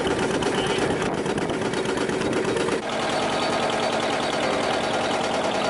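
Wooden fishing boat's inboard engine running with a fast, steady chugging, its sound changing about three seconds in as the boat is seen under way.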